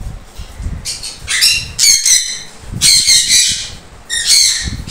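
Sun conures screeching: a run of harsh, high-pitched squawks, several in a row of about half a second each.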